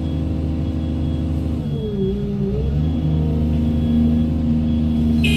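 Doosan 210W wheeled excavator's diesel engine running steadily; about two seconds in its pitch dips for about a second, then recovers.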